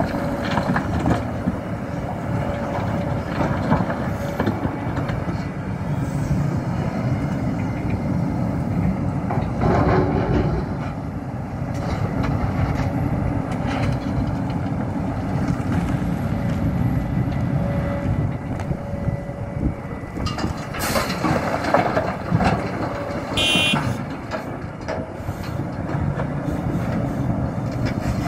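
Hidromek HMK 390LC excavator's diesel engine working steadily under load while digging and loading rock, with scattered knocks and clanks and a few louder knocks about three-quarters of the way in.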